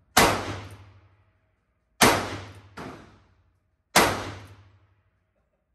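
1923 Colt Single Action Army revolver in .45 Colt firing three shots about two seconds apart, each sharp report dying away over about a second.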